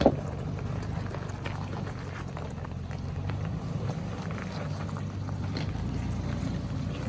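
An SUV engine running low and steady at trail-crawling pace, with scattered small knocks and clicks over rough ground and a sharper knock right at the start.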